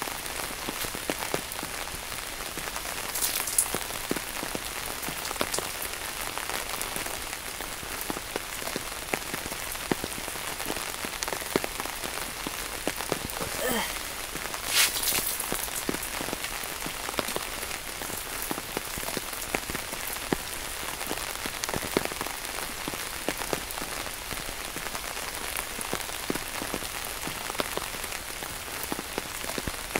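Rain falling steadily on the tent's fabric: an even hiss of many pattering drops, with a couple of louder taps about three seconds in and about halfway through.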